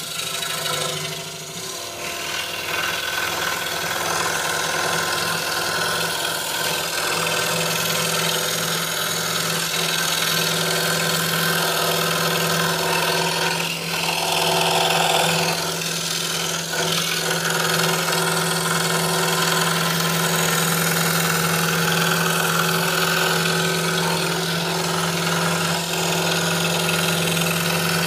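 A 26-inch RBI Hawk scroll saw running steadily, its 5-0 skip-tooth blade cutting Baltic birch plywood, with a constant low hum.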